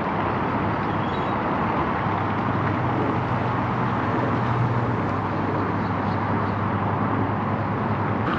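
Honda Grom's small single-cylinder motorcycle engine running steadily, with heavy wind noise on the microphone.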